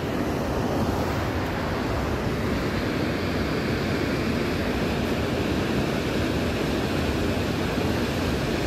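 Ocean surf breaking and washing up onto a pebble shore, a steady rush of noise.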